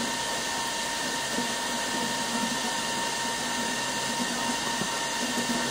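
Steady whirring hiss of a small pump recirculating water through a homebrew heat exchanger, with a thin steady whine over it.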